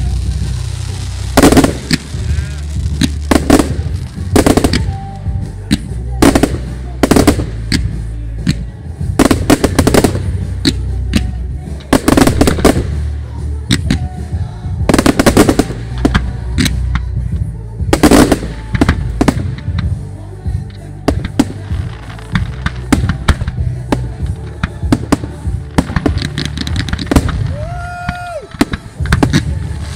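A fireworks display going off: a rapid, irregular series of loud bangs from aerial shells, several close together, with crackling between them.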